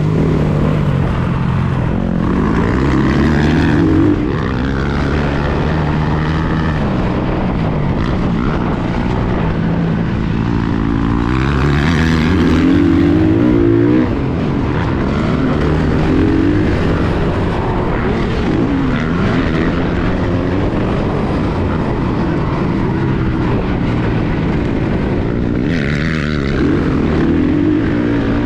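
Motocross dirt bike engine heard from the rider's own bike, revving up and falling back again and again as it accelerates, shifts and rolls off the throttle around the track.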